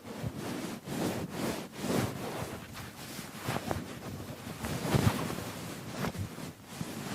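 A keyboard being scrubbed: a run of uneven rubbing and swishing strokes, with a few sharp clicks among them.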